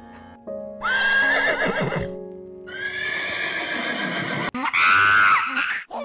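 Horse whinnying three times, high wavering neighs, the last the loudest, over background music.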